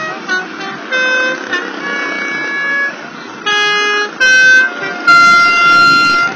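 Horns on miniature parade cars tooting a string of blasts at several different pitches, the longest and loudest blast near the end.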